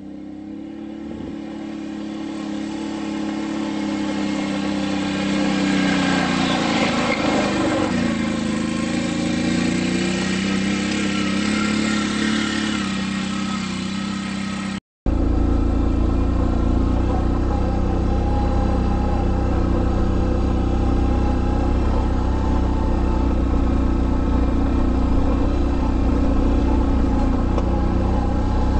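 ATV engine running as the quad climbs a rocky dirt trail, growing louder as it approaches, with its pitch rising and falling with the throttle. About halfway through the sound cuts off sharply and is replaced by a steady engine sound with a heavy low rumble.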